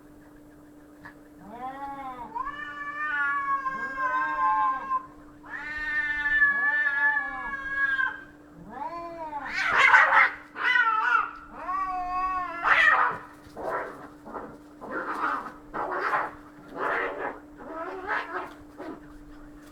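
Cats fighting: long, wavering yowls for several seconds, then a run of shorter, harsher screeching cries about once a second.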